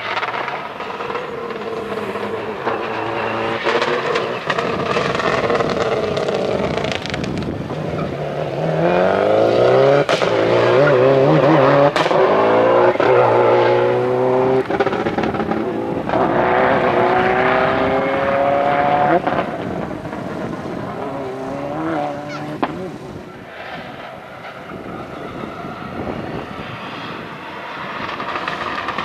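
Rally car engine revving hard through the gears, its pitch climbing and then dropping at each gear change. It is loudest in the middle, as the car passes, with a shorter burst of revs a few seconds later.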